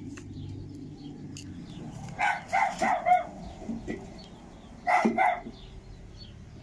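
A dog barking in two bouts: a quick run of about five barks, then two more a couple of seconds later. Faint metallic clicks of a screwdriver working the clips on a washing-machine transmission's metal cover sit underneath.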